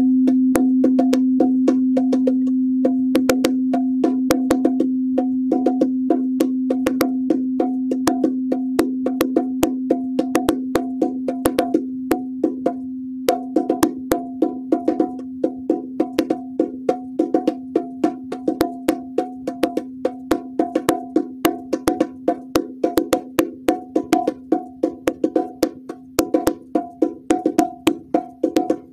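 A singing bowl's long ringing tone, slowly fading, under quick, steady hand taps on bongo drums. The drumming pauses for about a second halfway through, and the taps grow louder near the end.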